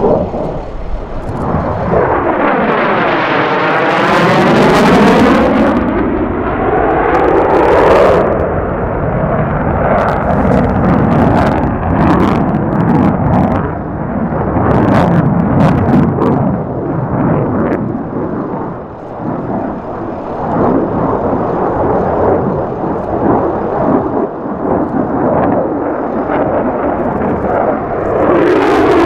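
Jet noise from an F-35A Lightning II's single F135 turbofan as the fighter flies past. A swishing, phasing sweep runs through the noise during the first pass, then a rough crackling with sharp cracks about a third to halfway through, and a fresh sweeping pass begins near the end.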